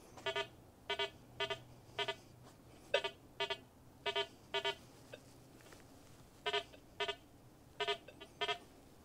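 Rutus Versa metal detector sounding short target-response beeps, mostly in pairs, as the DD23 coil is swung back and forth over test targets. The beeps are all of one pitch, with a quiet gap near the middle.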